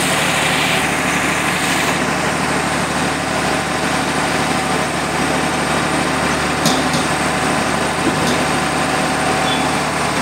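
Steady whirring hum of running machinery, with two short clicks about two-thirds of the way through.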